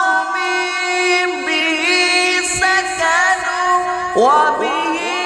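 Sholawat sung by a solo voice in long held notes with ornamented bends in pitch, over backing music.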